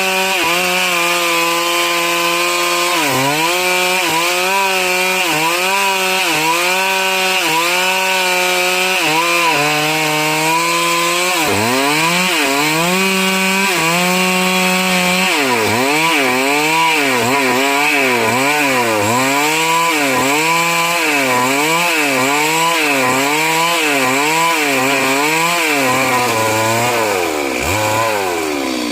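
Stihl MS 382 two-stroke chainsaw running at high revs while cutting wood. Its engine note dips and recovers over and over, about once a second at first and faster in the second half. Near the end it falls away to a lower pitch.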